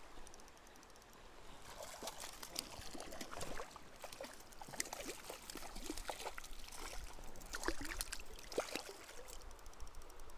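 Shallow stream water trickling and splashing around a wading angler's legs, with many irregular small splashes and bubbling sounds that grow busier about two seconds in.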